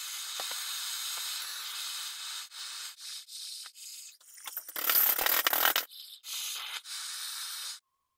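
Handheld gas torch hissing steadily while heating copper pipe and copper sheet for soldering. The hiss breaks off and resumes several times, with a louder, rougher stretch lasting about a second around five seconds in.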